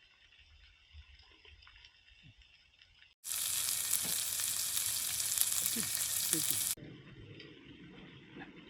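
A steady hiss that starts suddenly about three seconds in and cuts off abruptly about three and a half seconds later.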